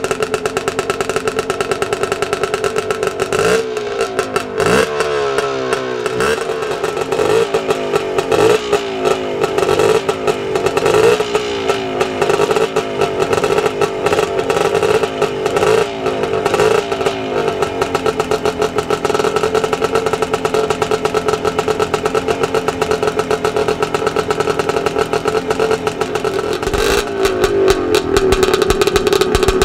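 Classic motocross bike's air-cooled engine running, revved in a quick series of short throttle blips and then settling back to a steady idle, with another rev near the end.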